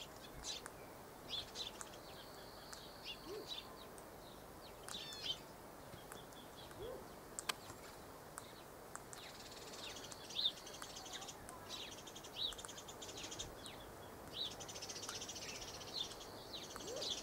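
Faint, high-pitched bird chirps and short twittering calls, scattered throughout, with a single sharp click about seven and a half seconds in.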